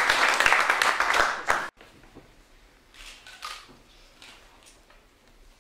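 Audience applauding with many hands, cut off suddenly about a second and a half in, leaving quiet room tone with a couple of faint brief sounds.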